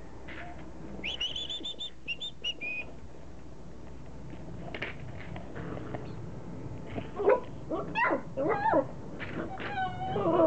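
Border collie puppies yelping and whining in play: a cluster of short, sharp yelps in the second half, ending in a falling whine.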